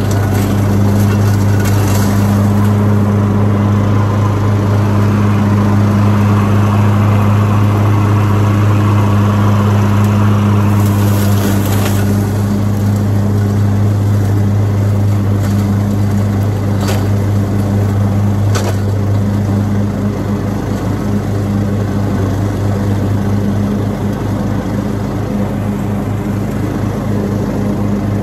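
Riding lawn mower's engine running steadily with a loud low drone, with a few sharp cracks now and then. After about twenty seconds the drone turns slightly quieter and more throbbing.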